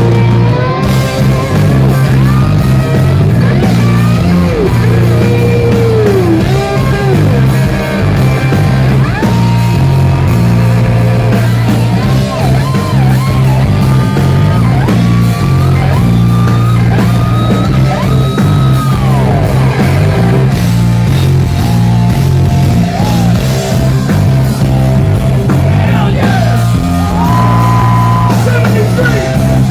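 Live rock band playing loud, with electric guitar lead lines that bend and glide in pitch over a steady bass and drums.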